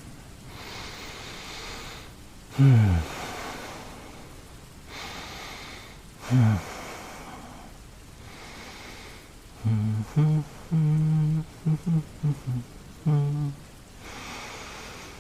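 A man's slow, close breathing with two low voiced sighs that fall in pitch, then a run of short, low hummed notes near the end.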